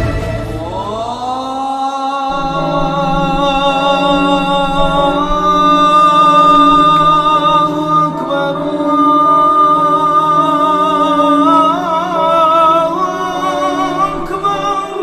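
Music: a long, slowly held melody over a steady low drone, the notes wavering with vibrato near the end.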